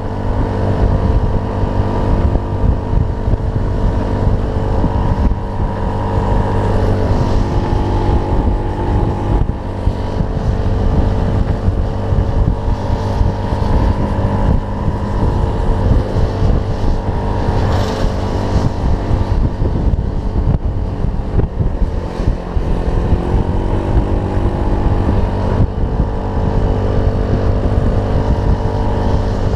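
Honda Zoomer-X scooter's small single-cylinder engine running steadily while riding, its pitch shifting slightly with the throttle, with wind rumbling on the microphone.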